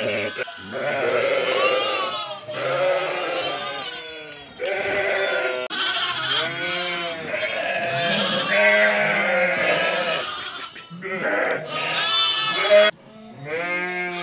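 A flock of ewes and newborn lambs bleating, with many overlapping calls, some deep and some high-pitched.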